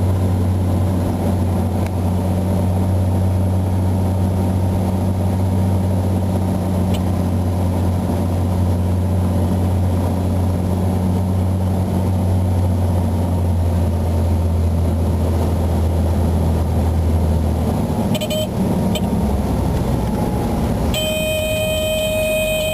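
Cessna 182 engine and propeller droning steadily, heard from inside the cockpit; the engine note drops about 17 seconds in as power comes back. About 21 seconds in, a steady, high warning tone sets in and holds: the stall warning horn sounding as the aircraft slows for touchdown.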